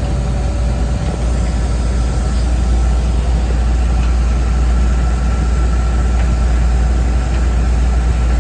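Combine harvester engine and machinery running steadily, a loud low rumble, with a faint steady whine through the latter half.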